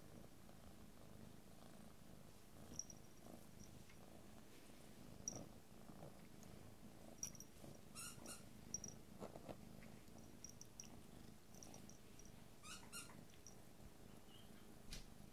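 Calico cat purring faintly, a steady low rumble, while suckling her own tail. Scattered soft clicks and small rustles sound over it.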